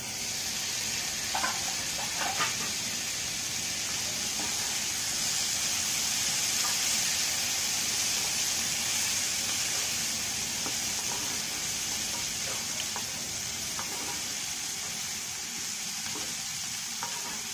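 Chopped cluster beans sizzling steadily in a nonstick pan on a low flame, cooking in their own steam without water. A few faint clicks in the first three seconds.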